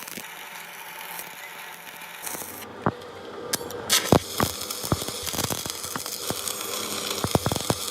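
Metalworking noise in an axle repair shop: irregular sharp clicks and knocks of metal over a steady hiss, growing busier and louder about two and a half seconds in.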